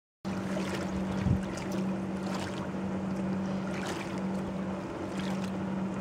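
Poolside ambience: a steady low hum under wind on the microphone, with a thump about a second in and a few brief splashes of water from feet dangling in the pool.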